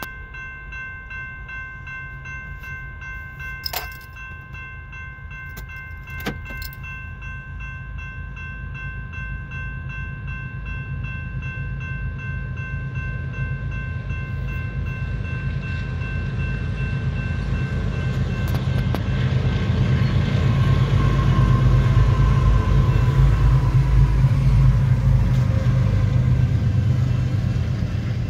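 Grade-crossing warning bell ringing steadily, fading out about halfway through, while a BNSF freight train approaches and passes without sounding its horn: a low rumble that grows louder, loudest in the second half as the locomotives and double-stack container cars roll through the crossing. Two sharp clicks a few seconds in.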